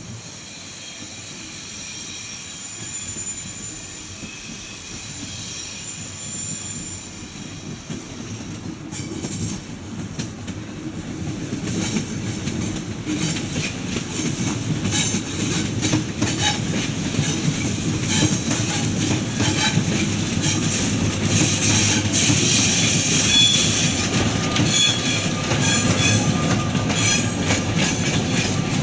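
Train coming in, growing steadily louder, with a high squeal of wheels on the rails. From about a third of the way in, the clicking of wheels over rail joints and a rumble build up.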